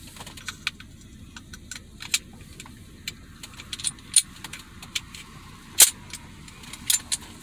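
Sharp metallic clicks and clacks of a Stoeger Cougar 8040 .40-calibre pistol being reassembled by hand, its slide and frame parts being fitted together, with one louder clack near the end. A steady low hum sits underneath.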